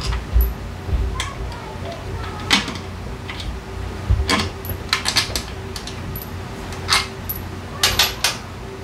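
Metal tools and drivetrain parts clinking and knocking while a scooter's belt drive is taken apart: about ten separate sharp clinks, some in quick pairs, over a steady low hum.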